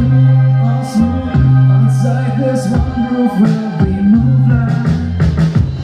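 Hip-hop beat playing: long deep bass notes under a melody, with regular drum hits.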